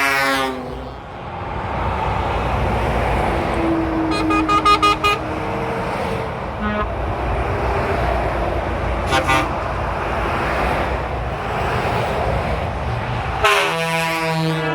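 Trucks passing on a motorway, sounding their horns over steady traffic noise. A horn blast sounds right at the start, then a quick run of short toots about four seconds in, and a short toot about nine seconds in. Near the end comes a long, loud horn blast.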